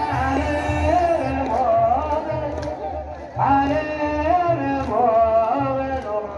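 A voice singing a slow, ornamented Ethiopian Orthodox hymn over a steady low beat; the line breaks off about three seconds in and starts again.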